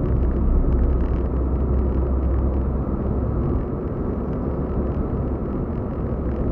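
Cabin noise of a stock Suzuki Celerio with no added sound deadening, driving at road speed: a steady low rumble of engine and tyres, easing slightly a little past halfway. The camera's plastic case gives a faint rattle from the car's vibration.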